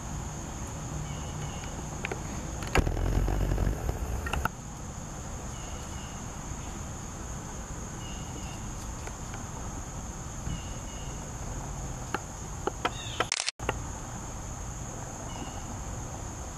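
Steady high-pitched drone of insects over low background noise, with a short chirp repeating every few seconds. About three seconds in, a louder low noise lasts about a second and a half; near the end a few clicks come, then the sound briefly cuts out.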